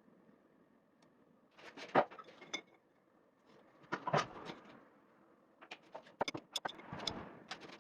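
Scattered light clicks and knocks over a faint steady hiss, with a few around two seconds in, a cluster about four seconds in, and a quicker run near the end.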